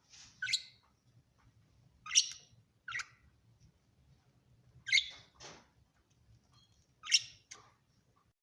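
Caged pet bird giving short, sharp chirps, about seven in all, singly or in quick pairs a second or two apart.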